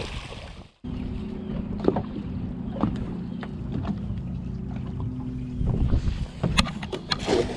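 A boat's motor runs with a steady low hum, with scattered knocks and water splashes; the hum stops about two thirds of the way in, followed by a few sharp clicks and splashes.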